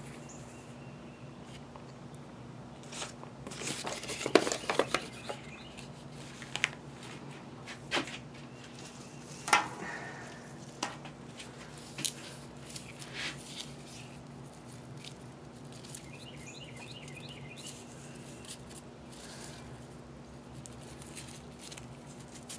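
Soft, scattered rustles and taps of paper sheets and leaves being handled and stacked into a bundle, a dozen or so short sounds in the first half, over a steady low hum.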